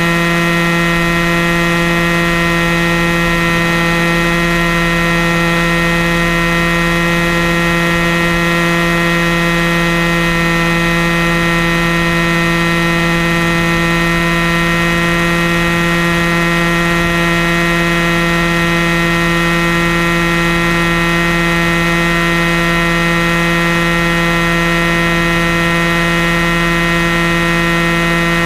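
Airstar Mongoose RC helicopter's engine and rotor running at a constant speed in flight, heard up close from a camera strapped to its nose: a loud, steady hum at one pitch with many overtones.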